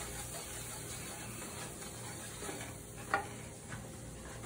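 A whisk stirring butter and flour into a roux in a nonstick frying pan, with small taps and scrapes against the pan and a steady low sizzle from the hot butter. A sharper tap comes about three seconds in.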